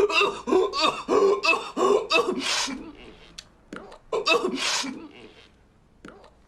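A man coughing and gasping in a fit, then sneezing twice, about two seconds apart, from pepper given to stop the coughing.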